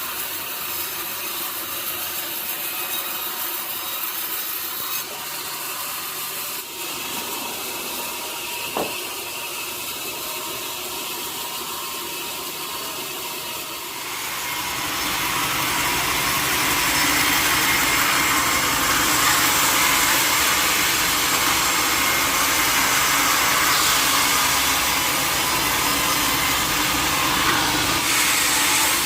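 Sawmill saw cutting a mahogany log: a steady machine noise that grows louder about halfway through into a harsh, sustained hiss as the blade works through the wood.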